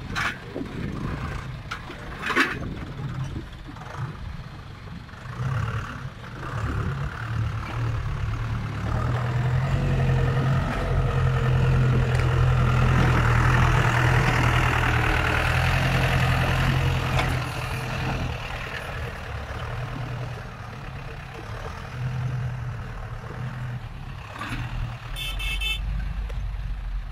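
Heavy diesel engines of a dump truck and tractor running, building to a loud steady drone for several seconds midway and then easing back. There is a brief high beeping near the end.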